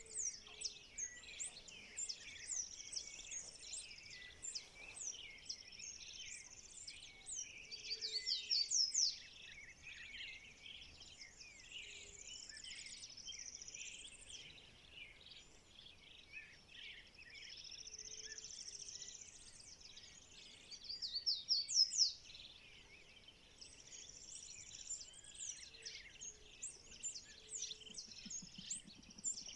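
Dawn chorus of many birds calling and singing at once, a dense mix of chirps and whistles, with two louder rapid trilled phrases standing out about a third of the way in and again about two-thirds in.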